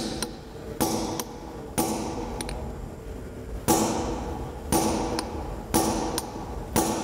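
Mash hammer striking a steel setting tool in a drop-in anchor set in concrete, six blows about a second apart, each with a short metallic ring. The blows drive the expander plug down into the anchor body to expand and set the anchor.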